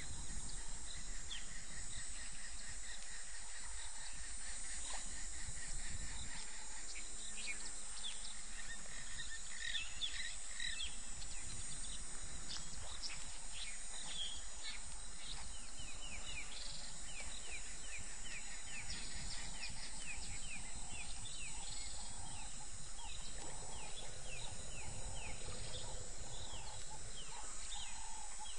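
Birds calling in the bush: a long series of short, quickly falling chirps, about two or three a second, over a steady high insect hum.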